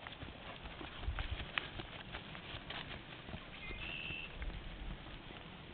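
Hoofbeats of a ridden horse loping on grass, with a brief high chirp a little past three and a half seconds in.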